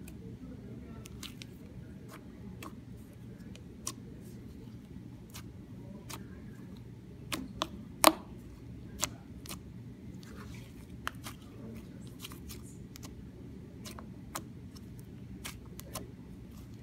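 Hands kneading and squishing white slime with gray pigment powder worked in: irregular sharp clicks and pops from the slime, the loudest about eight seconds in, over a low steady hum.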